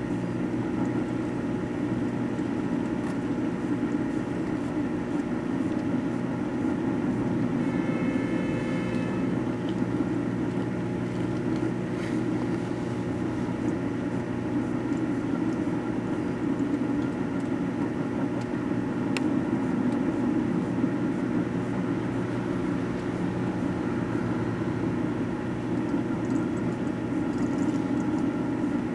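Microwave oven running with a steady hum as it heats a computer mouse, which fills the oven with smoke. Two sharp clicks come through the hum, about twelve and nineteen seconds in.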